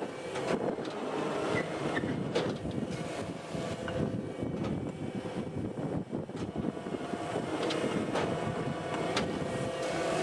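Firewood production line machinery running steadily, with irregular knocks and clanks throughout.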